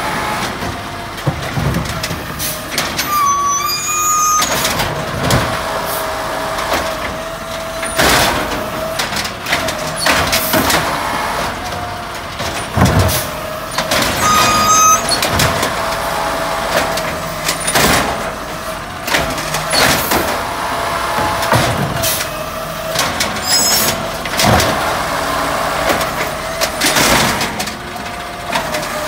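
Automated side-loader garbage truck working its lift arm on a row of recycling carts: a steady hydraulic whine over the running diesel engine, with repeated clanks and bangs as carts are gripped, tipped over the hopper and set back down. Two brief high squeals come about 3 and 15 seconds in.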